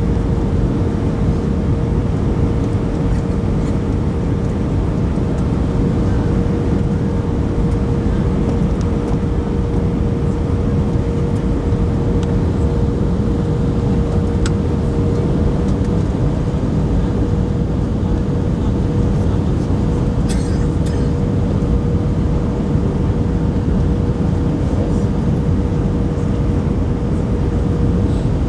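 Steady jet-engine and airflow rumble heard from inside an airliner's passenger cabin, with a constant hum running through it and a couple of faint ticks.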